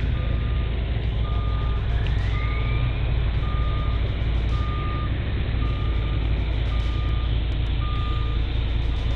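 Compact excavator's diesel engine running steadily, with a backup alarm beeping about once a second over it. A short rising whine comes in about two seconds in.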